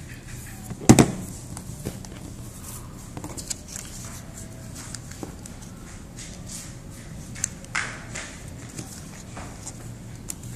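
Paper strip rustling and crackling as it is folded and pressed flat by hand against a wooden tabletop, with a sharp knock about a second in and a few louder crinkles later on.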